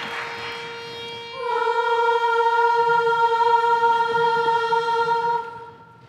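Applause dying away, then an a cappella chorus taking its starting pitch. A faint single note sounds first, and about a second in the whole chorus sings that note in unison, holding it steady for about four seconds before stopping.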